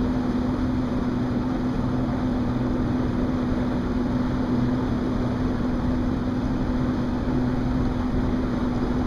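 Motorboat engine running at a steady speed, a constant even hum with rushing noise as the boat travels.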